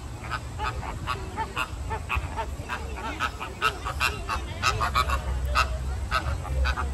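A flock of flamingos honking: many short, nasal calls overlapping in quick succession, growing busier in the second half.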